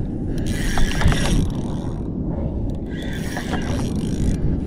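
Fishing reel on a hooked fish giving a ratcheting whir in three spells of about a second and a half each, over a steady low rumble of wind and water.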